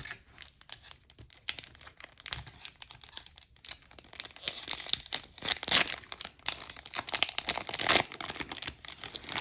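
A Pokémon Cosmic Eclipse booster pack's foil wrapper being torn open and crinkled by hand, with a continuous run of irregular crackles and rustles.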